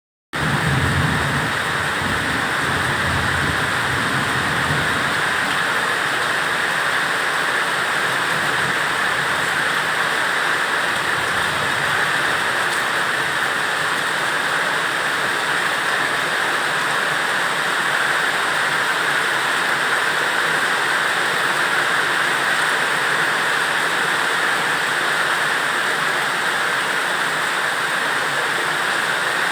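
Steady rain, an even unbroken hiss that starts suddenly at the beginning, with a low rumble underneath during the first few seconds.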